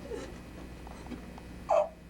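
A single short, sharp cry near the end, over a steady low hum.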